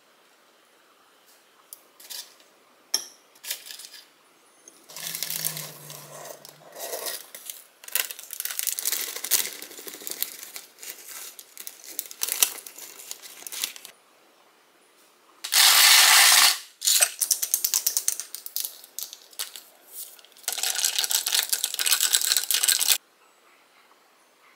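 Air-fried sweet potato fries and chicken fries tipped from a parchment paper liner onto a ceramic plate: crinkling paper and crisp fries clattering onto the plate, in repeated bursts with a few sharp clicks before them. The loudest burst comes about two-thirds of the way in.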